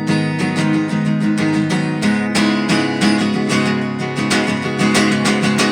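Acoustic guitar strummed in a steady rhythm of chords: the instrumental intro of a song played live.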